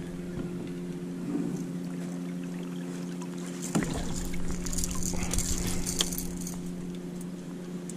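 A boat's outboard motor running steadily at low trolling speed, a constant hum with a few faint ticks and splashes over it in the middle.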